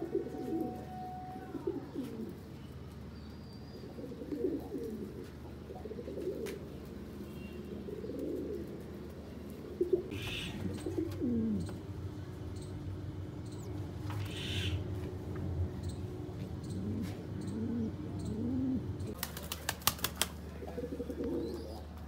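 Domestic pigeons cooing over and over in low, swelling calls. About three-quarters of the way through comes a quick run of wing claps as a pigeon flaps its wings.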